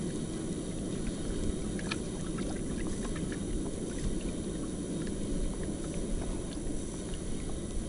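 Small waves lapping against a boat's hull: a steady low wash of water, with faint scattered ticks.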